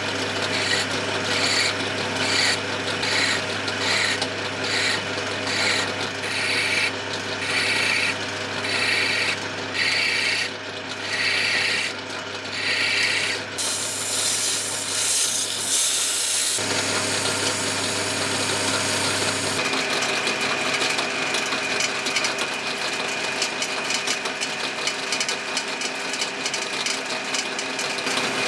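Wood lathe spinning a wooden handle blank while a steel file is stroked against it, a rhythmic rasp a little over once a second over the lathe's steady hum. About halfway through the filing stops and sandpaper is held to the turning wood, a smoother hiss. In the last part a twist drill bores into the end of the spinning handle.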